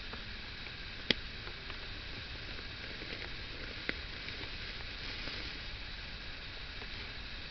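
Steady patter of light rain, with a few sharp clicks, the loudest about a second in.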